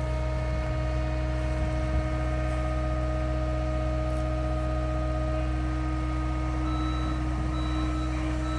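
John Deere 325G skid steer's diesel engine running steadily. About seven seconds in, its reversing alarm starts beeping repeatedly as it backs up.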